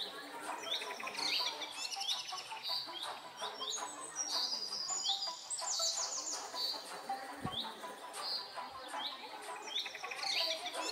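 Birdsong: several small birds chirping in quick, overlapping calls.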